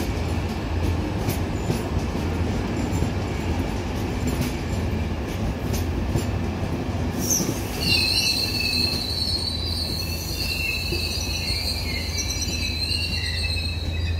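Passenger coaches of an arriving train rolling slowly past, with a steady rumble of wheels on rail. About halfway through, the wheels start squealing: a high-pitched, wavering screech that carries on as the last coach goes by.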